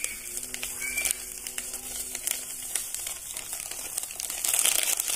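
Foil drink-powder sachets crinkling and crackling as they are handled and emptied into a steel saucepan, the rustling growing louder near the end.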